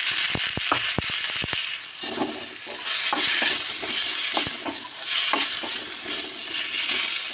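Freshly added chopped tomatoes sizzling in hot mustard oil and spices in a steel kadhai, stirred with a steel ladle that scrapes and clicks against the pan. A quick run of clicks in the first second and a half, then steady sizzling with scraping strokes.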